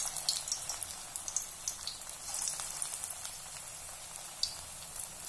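Green pea kofta balls deep-frying in hot oil in an aluminium kadai: a steady sizzle with many fine crackles.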